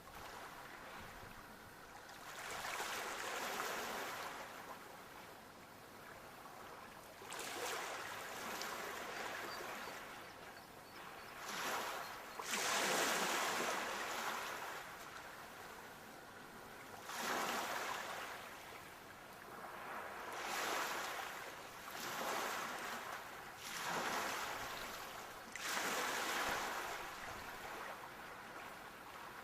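Sea waves breaking and washing in, one surge of hiss rising and falling after another every few seconds, the loudest about halfway through.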